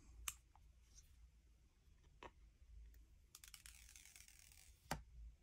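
Near silence broken by a few faint clicks, the last one near the end the loudest, and a short soft rustle a little past halfway: hands handling an iPhone 14 Pro and its box during unboxing.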